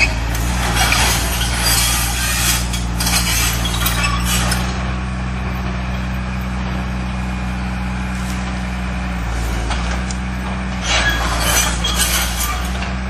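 Kato excavator's diesel engine running steadily as the machine travels on its tracks, the tracks squealing and clinking for the first few seconds and again near the end.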